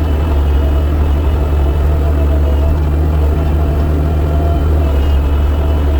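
Diesel engine running steadily at a constant speed: a loud, even drone with no change in pitch.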